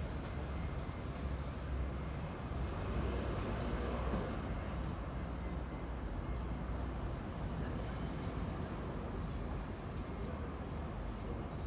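Steady outdoor background noise with a low rumble, typical of distant urban traffic.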